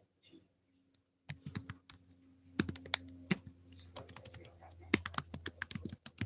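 Typing on a computer keyboard: irregular key clicks starting a little over a second in, with a low hum underneath.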